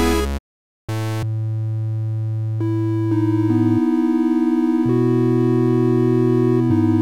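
Xfer Serum software synth playing held chords on a wavetable sampled from a Minimoog Voyager, the notes changing every second or so. It cuts out briefly about half a second in. After that the tone is softer and duller, with the wavetable set to a triangle shape instead of a saw.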